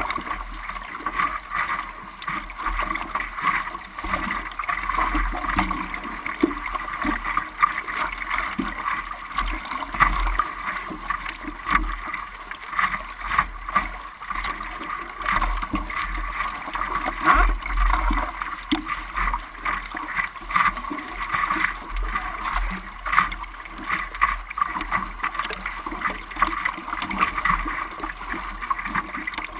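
Sea water splashing and churning in irregular bursts, with wind rumbling on the microphone.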